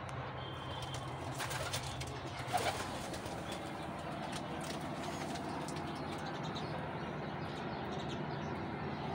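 Caged domestic fancy pigeons cooing continuously, with a few brief sharp sounds between about one and a half and three seconds in.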